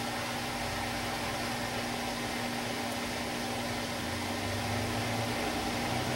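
Samsung WD136 front-loading washer-dryer running mid-wash. Its direct-drive motor gives a steady whine of several held tones over a hiss, and a low rumble swells slightly near the end.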